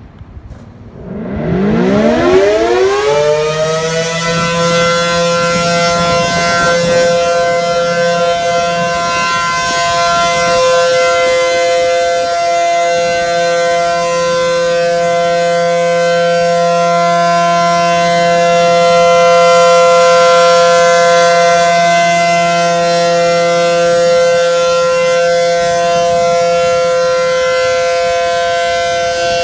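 Tornado warning siren sounding for a test: it winds up from silence in a rising glide over about three seconds, then holds a steady wail that grows a little louder about two-thirds of the way through.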